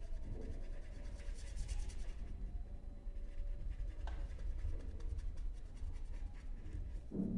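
Faint, irregular scratching of a pen or marker writing, over a low steady hum.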